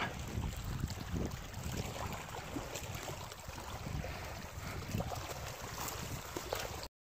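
Wind rumbling and buffeting on the microphone, with scattered small clicks and knocks. It cuts to silence right at the end.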